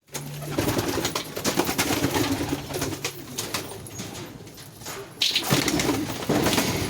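Pigeons cooing in low, held tones, with many short sharp taps mixed in. It quietens for a moment just past the middle, then picks up again.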